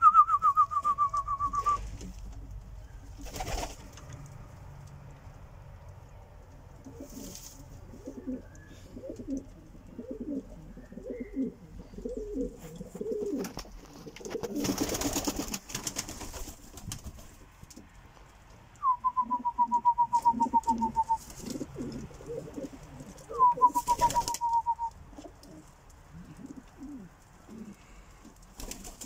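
Domestic pigeons, Polish show homers and Silesian shield pigeons, cooing in low, pulsing stretches. A rapid trill falls in pitch three times: once at the start and twice about two-thirds of the way through. A few short rushing noises come between.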